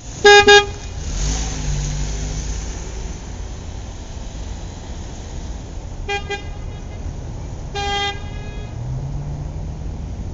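Car horn honking: a loud quick double honk at the start, another short double honk about six seconds in and a single longer honk about eight seconds in, over a steady low rumble of engines and traffic.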